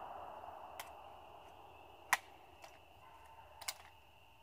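A handful of faint, sharp clicks and ticks, the loudest about two seconds in and another pair near the end, while a rush of noise fades away at the start. A faint steady high tone runs underneath.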